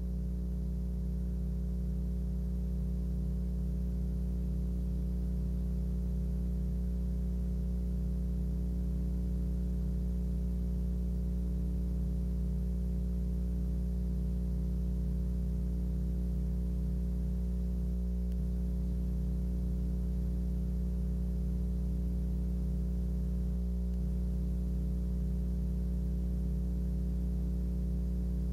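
Steady electrical mains hum with a stack of buzzing overtones, unchanging throughout.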